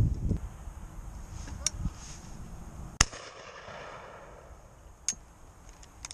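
Shotgun shots on a pheasant shoot. The loudest is a sharp report about three seconds in that echoes away for over a second, with fainter single cracks before and after it. A low rumble on the microphone is heard at the start.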